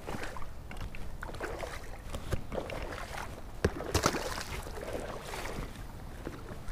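A plastic duck decoy thrown out onto a pond splashes down about four seconds in, with light rustling and small knocks from handling before it.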